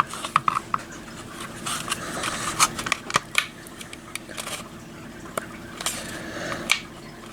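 The plastic housing of an Edwards LED strobe being worked open, giving off irregular plastic clicks, taps and scrapes.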